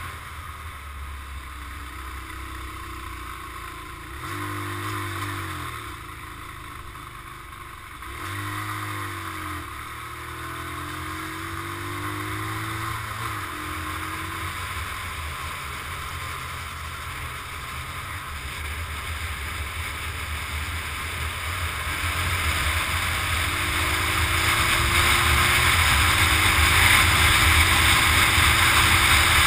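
Motorcycle engine running under way with heavy wind rush over the microphone. The engine note dips and climbs again about four and eight seconds in, like gear changes, then holds steady while the wind noise grows louder near the end.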